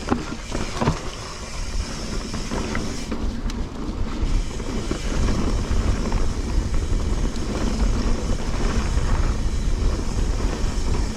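Mountain bike being ridden down a rough dirt trail. Wind rumbles on the camera microphone over the tyre and trail noise and the bike's rattle, with a few sharp knocks in the first second.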